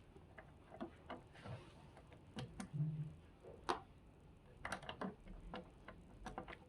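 Faint, irregular light clicks and knocks of a plastic caster wheel being handled and worked off the base of a portable air conditioner.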